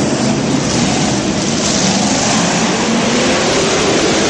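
Monster truck engine running loud and steady, its pitch climbing slightly near the end.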